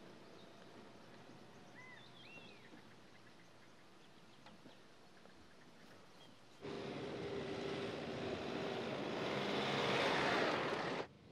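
A few faint bird chirps in quiet outdoor air, then a Mercedes-Benz X-Class pickup driving close by on a dirt track: engine and tyres on loose ground growing louder as it nears, cut off suddenly near the end.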